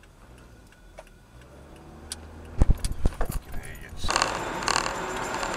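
A quiet low hum inside a car, broken a little over halfway through by a quick run of sharp clicks and knocks. Near the end comes a steady rush of road noise from a car driving at highway speed, heard from inside the cabin.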